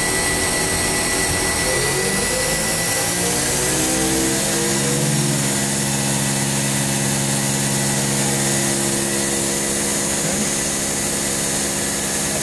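Hurco VM20i CNC vertical machining center's spindle spinning up under manual spindle-speed control: a whine of several tones rises in pitch over about three seconds from about two seconds in, then holds steady at speed over the machine's steady running hum.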